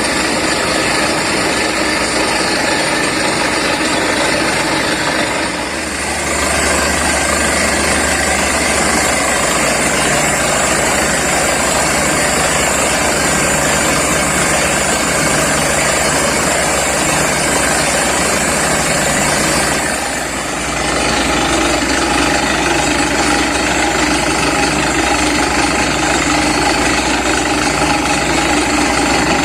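Borewell drilling rig's engine and compressor running steadily under load. The level dips briefly twice, about six and twenty seconds in, and the low hum shifts after each dip.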